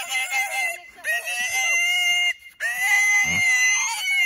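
Juliana mini pig squealing while being carried in someone's arms: three long, high, steady squeals with short breaks between them.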